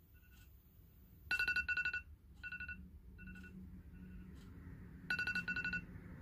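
iPhone alarm beeping: loud clusters of quick high electronic beeps about a second in and again near the end, with softer single beeps in between.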